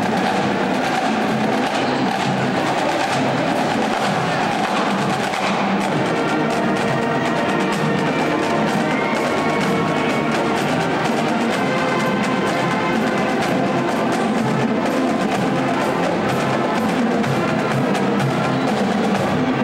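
Marching band playing, with brass carrying the tune over frequent drum strokes.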